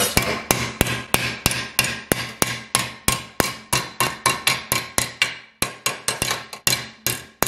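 Hand hammer striking a sheet-steel flange clamped over a hardwood form in a bench vise, folding the flange over. The blows come steadily at about three a second, with a short pause a little after five seconds in.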